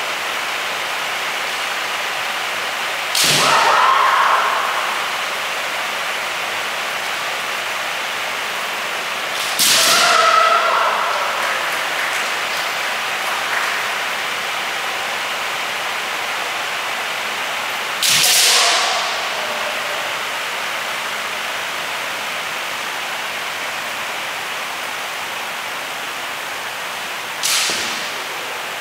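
Kendo sparring: four sharp cracks of a bamboo shinai striking armour, each with a shouted kiai. They come about six to nine seconds apart over a steady background hiss.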